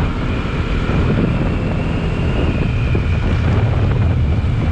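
Steady wind rushing over the action-camera microphone at riding speed, over the low running of a Bajaj Pulsar NS200 motorcycle's single-cylinder engine cruising on the road.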